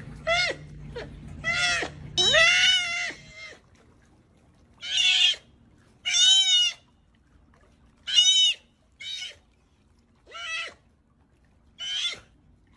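Sea otter crying: a string of about ten high-pitched squealing calls, each under a second and separated by short pauses, several arching up and then down in pitch.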